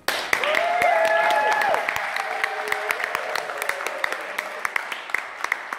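Audience applauding, with a voice calling out over the clapping in the first two seconds; the clapping thins to scattered claps near the end.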